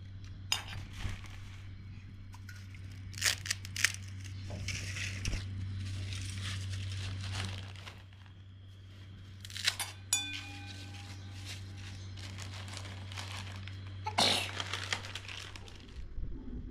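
Intermittent crinkling and rustling, like plastic or paper being handled, with several sharp bursts and the loudest one near the end, over a steady low hum. About ten seconds in, a knock is followed by a brief ringing tone.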